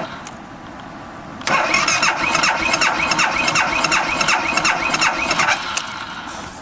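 BMW G 650 GS Sertão's single-cylinder engine being cranked on the electric starter without firing. A pause of about a second and a half, then a second crank of about four seconds. This is the bike's recurring cold no-start fault.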